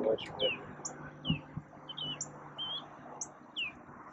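Birds calling: short downward-sweeping chirps repeated about once a second, alternating with brief higher notes.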